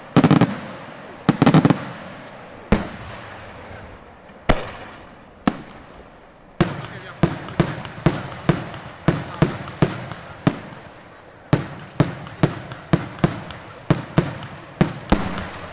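Daytime fireworks: shells going off with sharp bangs that echo and die away. A few heavy bangs at the start and some single ones, then from about halfway a rapid string of about two bangs a second.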